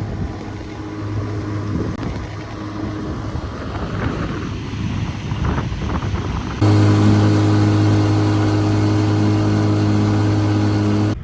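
Outboard motor of a Bass Tracker boat running steadily under way, with a drone and rushing noise. About two-thirds of the way through, the sound cuts abruptly to a louder, steadier run of the engine.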